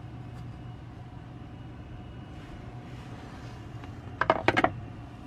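A quick run of metallic clinks about four seconds in, like loose bolts and hand tools knocking together, over a steady low hum.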